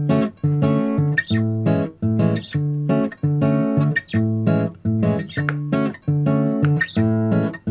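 Background music: an acoustic guitar strumming chords in a steady rhythm, about two strokes a second.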